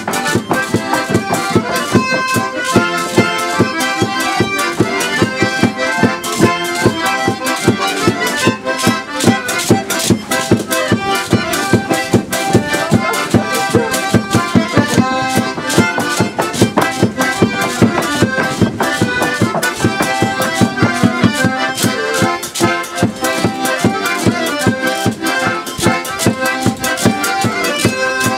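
Two accordions playing a lively folk dance tune, with a drum beating a quick, steady rhythm under it.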